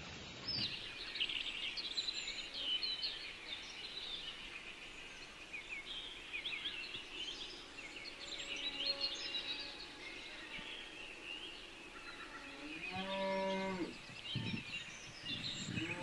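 Small birds chirping and twittering throughout, with one long lowing call from a cow about thirteen seconds in.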